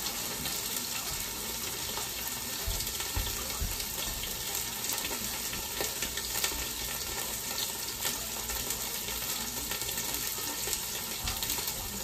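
Frozen tuna pieces frying in oil in a stainless steel pot: a steady sizzle with scattered small pops of spattering oil.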